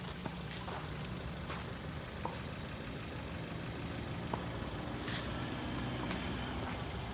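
Ford Fiesta's engine idling steadily, with a few faint irregular clicks over the hum.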